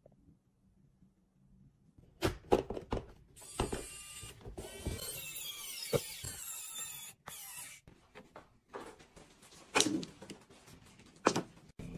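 A small pen-style electric screwdriver whirring for about four seconds as it drives a screw into a board, its whine wavering in pitch, amid knocks and clicks of parts being handled. Two sharp knocks follow near the end.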